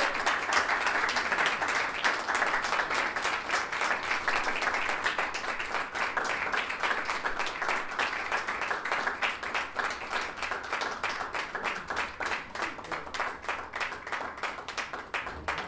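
Audience applauding with dense hand-clapping that gradually thins out and fades toward the end.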